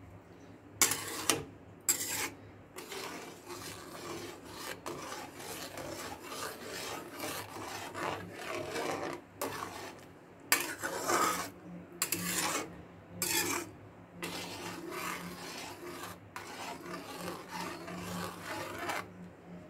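Metal spatula scraping and stirring semolina in a kadai: repeated rasping strokes against the pan as the rava kesari is stirred continuously to stop lumps forming. The sharpest scrapes come about a second in and in a cluster around the middle.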